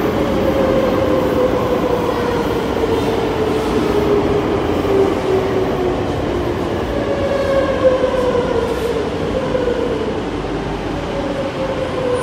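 Madrid Metro electric train moving through an underground station: a steady rumble under an electric motor whine that slides down in pitch twice.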